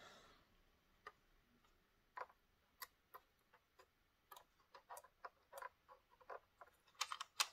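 Faint, irregular clicks and light plastic taps from an ACME model railway passenger coach being handled and turned in the fingers, touching its bogie, with a quick run of louder clicks near the end.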